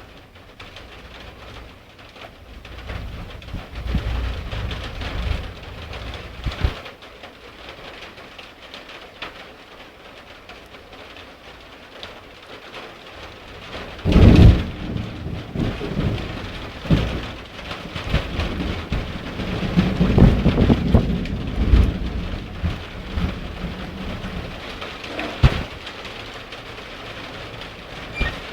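Rain falling steadily during a thunderstorm, with thunder: a low rumble a few seconds in, a sudden loud clap about halfway through, then rolling rumbles.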